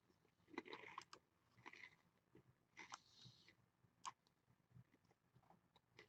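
Near silence with faint, scattered clicks and rustles, the sharpest click about four seconds in.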